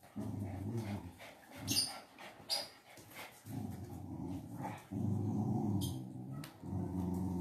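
Pet dogs growling while play-fighting: several long, low growls with short gaps, and a few short, sharp sounds in between.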